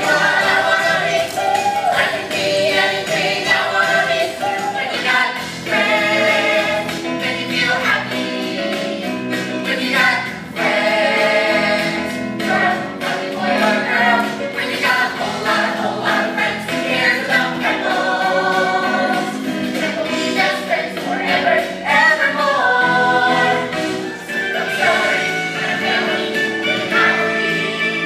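A musical theatre song: several voices singing together over an instrumental accompaniment, continuous throughout.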